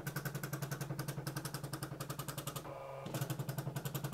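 Teletype Model 43 teleprinter's dot-matrix print head printing incoming text from the Raspberry Pi as it boots: a rapid, even ticking of the head striking the paper, with a brief break just under three seconds in.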